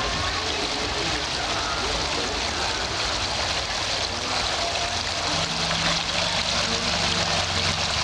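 Water of a small handmade model waterfall splashing steadily down onto pebbles into its pool, with a low steady hum underneath.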